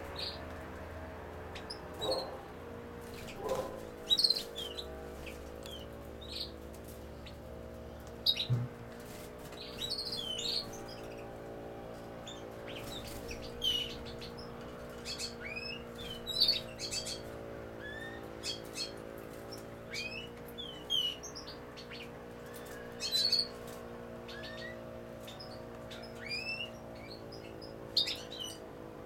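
European goldfinches chirping: short, high calls and twitters every second or two, over a steady low hum.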